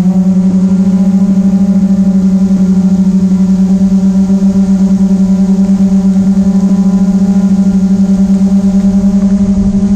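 Quadcopter drone's motors and propellers humming loudly at one steady pitch, with a fast pulsing beat.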